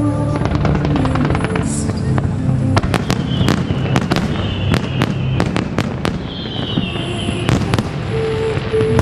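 Aerial fireworks going off: a fast run of crackling pops, then a dense flurry of sharp bangs from about three seconds in. Twice a high whistle glides slowly down in pitch between the bangs.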